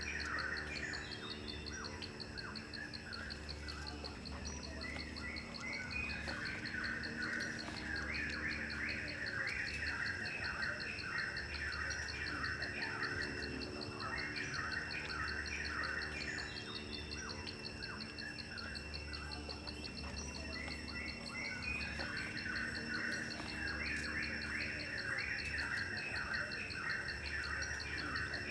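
Insects trilling steadily, with bursts of bird chirping that come and go every few seconds, under a faint low hum.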